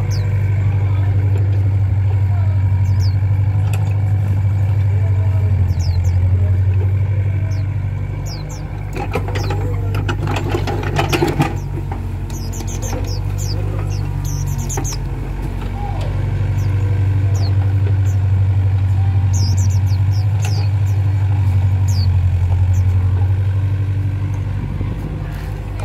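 Volvo EC55B mini excavator's diesel engine running steadily under load while it digs wet mud; the engine note swells and eases as the hydraulics work. A noisier burst of scraping and clatter comes about nine to twelve seconds in, and short high chirps, like small birds, sound now and then.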